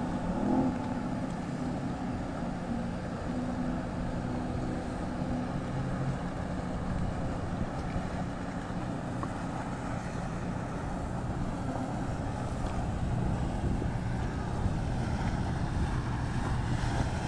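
Engines of passing motor cruisers running steadily, a low drone, with wind buffeting the microphone.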